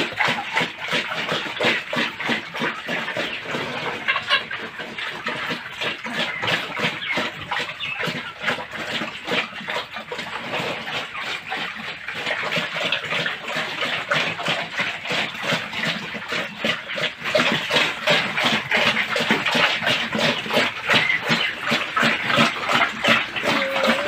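Several pigs eating from a feed trough: fast, continuous chomping and smacking.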